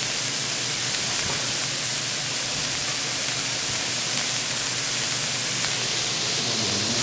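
Beef slices sizzling on a ridged electric grill pan: a steady hiss.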